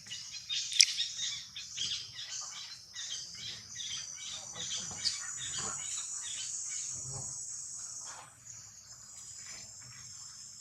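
Insects chirring in a high, steady drone, with a run of short, quick chirps about twice a second through the first half.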